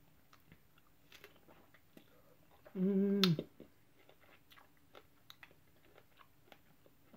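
A person chewing strawberries with the mouth closed: soft, scattered wet clicks and smacks. About three seconds in comes a short hummed "mmm", the loudest sound, ending in a lip smack.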